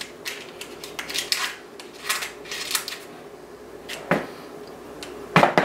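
Parchment paper crinkling and rustling in short, irregular crackles as it is handled along the edges of a metal sheet pan.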